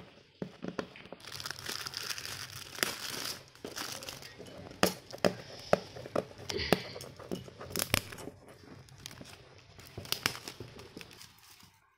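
Shiny gift-wrapping paper crinkling and tearing as hands pull it open: a continuous rustle broken by many sharp crackles, stopping abruptly just before the end.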